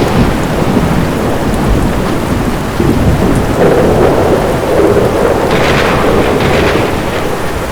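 Thunderstorm: steady heavy rain with rolling thunder rumbling through it, swelling louder a few seconds in.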